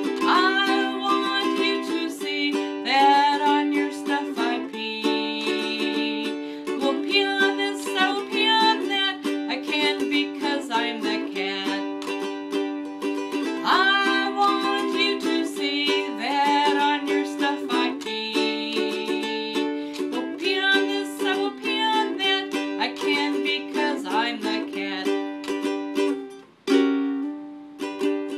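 Instrumental ending of a song on an acoustic plucked-string instrument such as a ukulele, strummed chords with picked melody notes. The playing breaks off briefly near the end, then a few last notes follow.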